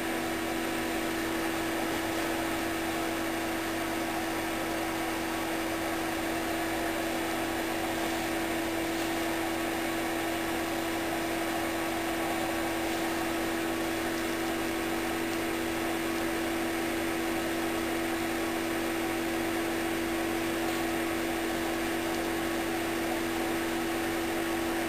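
Steady electrical hum with two constant low tones over an even background hiss, unchanging throughout.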